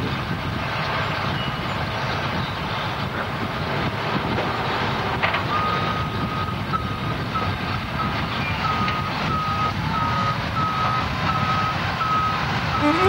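Hi-rail Ford boom truck's engine running on the rails. About halfway in, its backup alarm starts beeping steadily, about one and a half beeps a second, as the truck reverses along the track.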